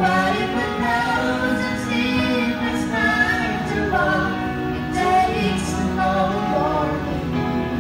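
A young woman singing a slow ballad into a handheld microphone, holding and gliding between long notes.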